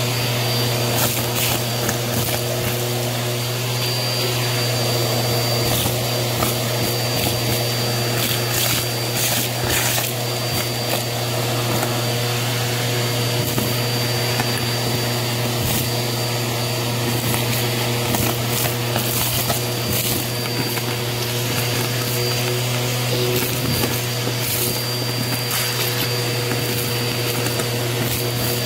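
Bissell vacuum cleaner running steadily with its crevice tool sucking up gritty dirt, lint fluff and paper confetti from a cardboard box, with irregular crackling clicks as bits of debris are pulled up the nozzle over a constant motor hum and high whine.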